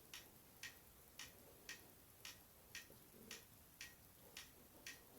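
Faint, even ticking, close to two ticks a second, over quiet room tone.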